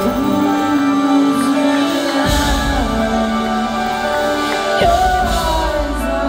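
Live band music with a woman singing into a microphone. The deep bass drops out at the start and comes back about two seconds in.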